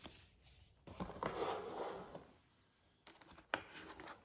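Packaging handling: a rustle of paper and plastic sleeve about a second in, then a sharp click and light taps near the end as hands grip the sat-nav in its cardboard box.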